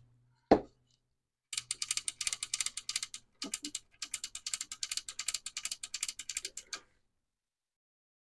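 A single knock about half a second in, then the TRS-80 Color Computer 2's power switch clicked back and forth rapidly in two long runs, about ten clicks a second. The switch is being worked to spread freshly sprayed DeoxIT contact cleaner through its contacts.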